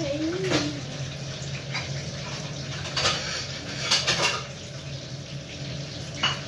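Crackling and rustling of plastic cling wrap and crisp fried vermicelli nests as they are pressed into a muffin tin, in short bursts, the loudest about three and four seconds in, over a steady low hum.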